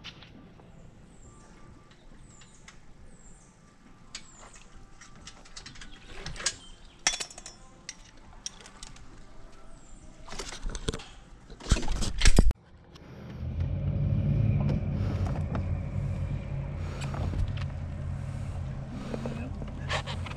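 Scattered clicks and knocks, then after an abrupt cut a boat motor running steadily with a low hum, from about twelve seconds in.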